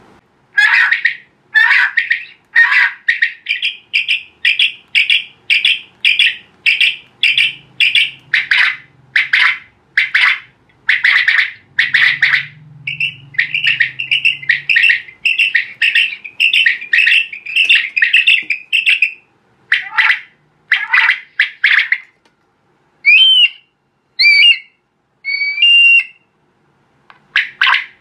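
Electronic duck caller playing recorded duck calls loudly through twin horn speakers. A long run of quacks comes about one and a half a second and runs together faster in the middle. A few whistling calls that bend up and down in pitch follow near the end.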